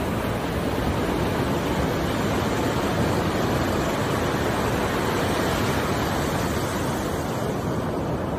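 Ocean surf washing on a beach: a steady rushing noise that does not rise or fall.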